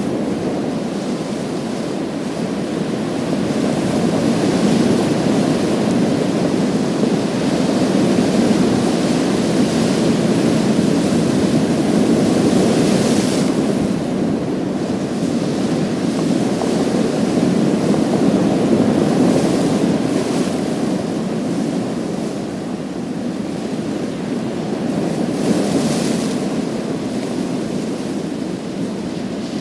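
Sea waves washing continuously over a pebble beach, a steady surf with louder surges of hiss about halfway through and again near the end.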